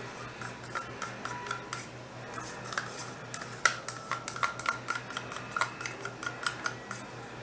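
A small utensil scraping and clicking against the side of a small cup while stirring soap colourant, with quick irregular clicks that come thicker in the second half, over a low steady hum.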